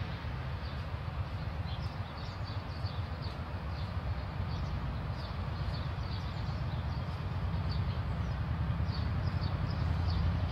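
Small birds chirping in many short, high calls over a steady low rumble.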